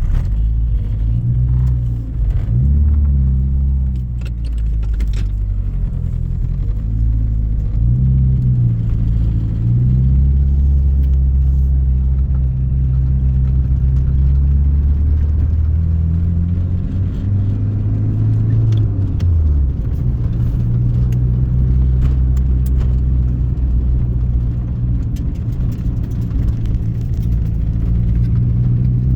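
Turbocharged 2.0-litre 4G63 four-cylinder of an AWD Eagle Talon TSi, heard from inside the cabin, running under load with its pitch rising and falling several times as it revs and changes gear, while interior trim rattles. The car is being datalogged for a misfire.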